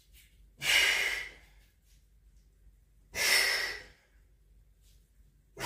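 A man breathing out hard in rhythm with exercise effort, each exhalation a short breathy rush about two and a half seconds apart: two in full and a third starting at the end. The breaths go with push-up repetitions.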